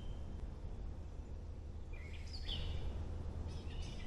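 A bird calling in short, high chirps that step downward in pitch, a couple about halfway through and a quicker cluster near the end, over a steady low rumble.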